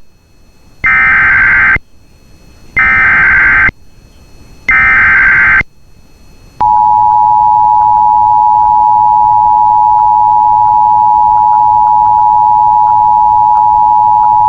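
Emergency Alert System SAME header: three one-second bursts of warbling digital data tones, each about a second apart, followed about six and a half seconds in by the steady two-tone EAS attention signal, held for about eight seconds. It marks the start of a new alert, here a severe thunderstorm warning.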